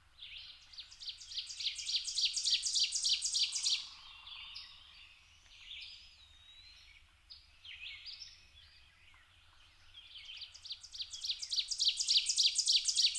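A woodland songbird singing twice. Each song is a rapid run of repeated high notes that grows louder over about three to four seconds. The first comes right at the start and the second about ten seconds in, with fainter bird calls between them.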